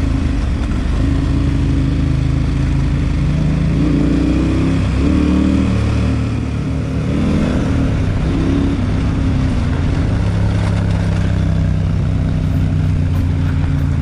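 Adventure motorcycle engine running under way, its note rising and falling several times between about four and nine seconds in as the throttle and gears are worked, then holding steady.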